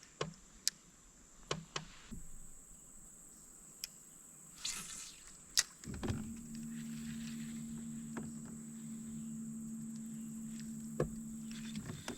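A few light clicks and knocks, then an electric trolling motor hums steadily for about six seconds, starting about halfway in and cutting off just before the end.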